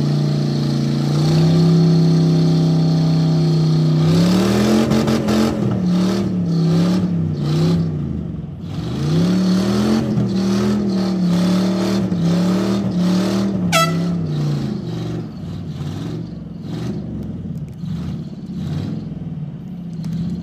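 Demolition derby car V8 engine held at high revs, then revving up and down over and over as the car pushes, with rattling clatter, before easing back near the end. A short high squeal drops sharply in pitch a little before two-thirds of the way through.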